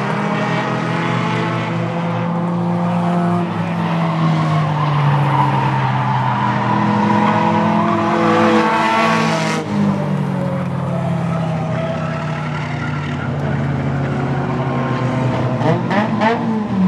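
Several four-cylinder short-track race cars running laps together, their overlapping engine notes rising and falling as they go around the oval. Near the end one car passes close with a quick rise and drop in pitch.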